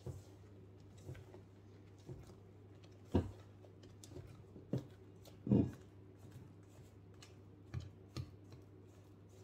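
Spatula folding whipped cream into thick chocolate cake batter in a stainless steel bowl: irregular soft taps and scrapes against the bowl about once a second, the loudest about five and a half seconds in, over a steady low hum.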